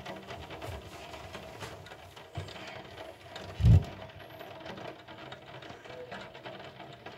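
Thunderstorm rain pattering steadily, with a short, loud low thump about three and a half seconds in and a smaller one a second before it.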